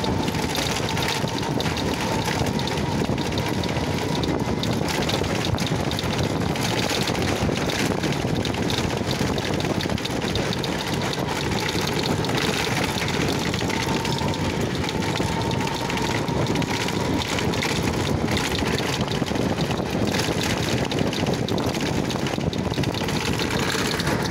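Steady engine and road noise of a moving motor vehicle, heard from on board, with a faint thin whine that slowly rises in pitch.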